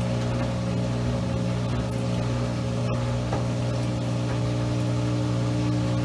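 Maytag Commercial Technology front-load washer's drum motor running in the final spin, a steady hum with several held low tones.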